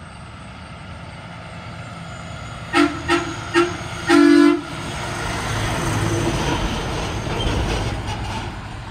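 Semi truck's air horn blown three times briefly and then once longer. The truck's diesel engine and tyres then grow louder as it passes close by, easing off near the end.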